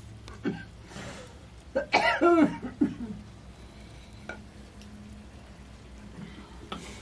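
A person coughing and clearing the throat, with a loud cluster of throaty coughs about two seconds in and shorter throat sounds just before and near the end.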